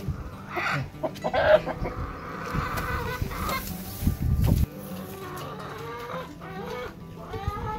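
Domestic hens clucking and calling, in short calls early on and a quick run of calls near the end, with a dull knock about four seconds in as a metal feeding tray is set down on the ground.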